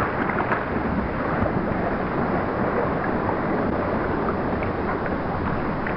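Steady outdoor rushing noise, even and unbroken, with no distinct calls or knocks standing out.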